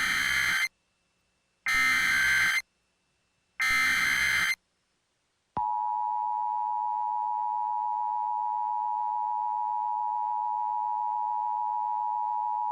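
Emergency Alert System broadcast opening: three short, harsh bursts of digital SAME header data, about a second each, then, after a brief gap, the steady two-tone EAS attention signal from about five and a half seconds in. Together they announce that a new emergency alert message follows.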